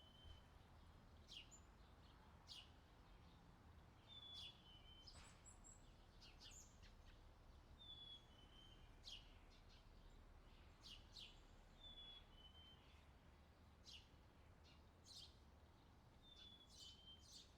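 Outdoor nature ambience with birds calling: a short two-note whistle falling in pitch, repeated about every four seconds, and scattered quick high chirps, over a faint low steady background rumble.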